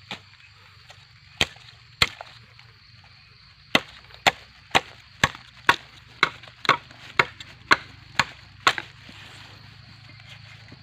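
A blade chopping into gombong bamboo: sharp woody strikes, a few spaced out at first, then a steady run of about two a second for some five seconds before stopping.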